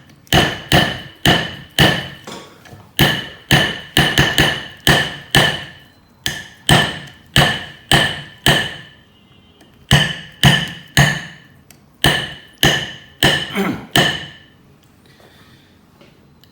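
A 2UUL Everyday screwdriver is struck hard and repeatedly against a metal plate, about two blows a second. Each blow is a sharp clang with a short metallic ring. The blows pause briefly about two-thirds of the way through and stop about two seconds before the end.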